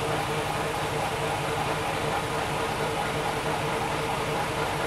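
Fuji Heavy Industries-built Akechi 10-series diesel railcar standing with its engine idling: a steady diesel rumble with a constant hum.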